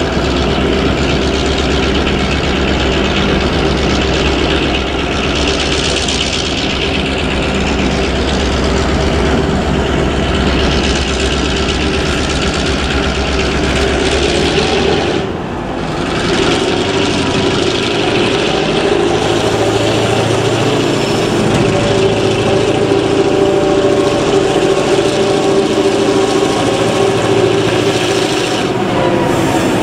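Victorian Railways T-class and P-class diesel-electric locomotives working under power as they approach, a steady diesel engine drone. A deep low hum fills the first half and stops about halfway through. The engine sound grows slightly as the locomotives draw near, with a rising tone near the end.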